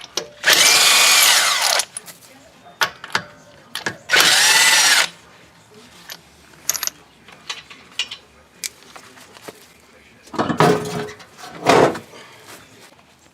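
Handheld power tool run in two bursts of about a second each, its motor pitch falling away as it winds down, with light clicks and clanks of tools in between. Two shorter, rougher bursts come near the end.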